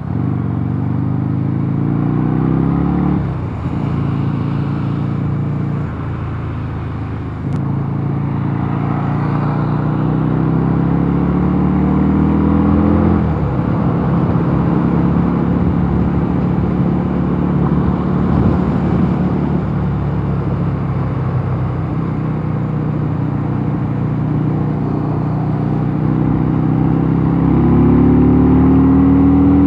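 Mondial Nevada 250 motorcycle engine running under way, its pitch climbing as it accelerates, dropping sharply about three seconds in and again around thirteen seconds, then holding steady at cruise before rising and getting louder near the end.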